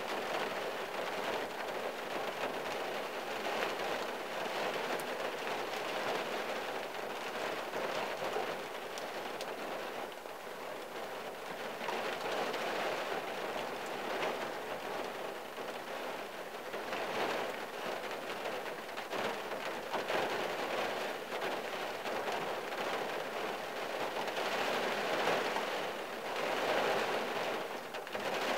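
Rain falling on the roof and windshield of a '74 Valiant, heard from inside the cabin: a steady patter that grows heavier and lighter by turns.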